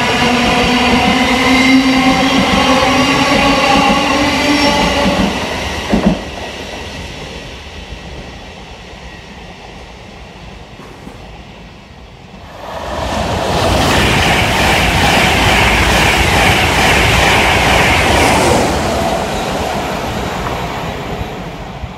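Trains passing at speed. The first fades away within about six seconds, with a steady hum of tones over the rail noise and a single knock as it goes. A second train rushes past about halfway through, its wheels on the rails loud for several seconds before dying away near the end.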